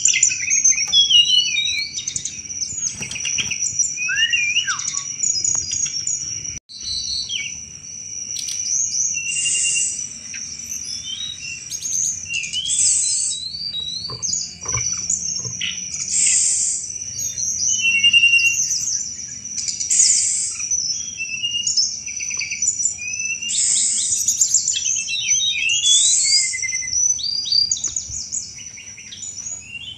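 Tledekan gunung singing in quick, repeated chattering phrases (the 'cetrekan' song), full of fast up-and-down whistled glides. A steady high-pitched buzz runs underneath, and the sound cuts out for a moment about seven seconds in.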